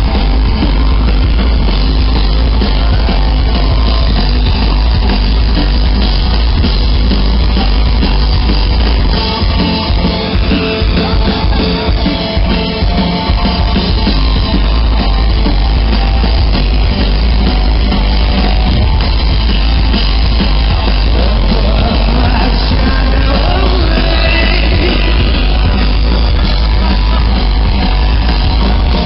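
Loud rock music with a drum kit and guitar, bass-heavy and distorted.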